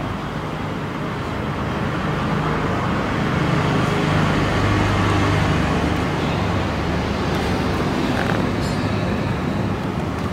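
A steady low rumble with a hiss over it, growing a little louder in the middle and then easing off.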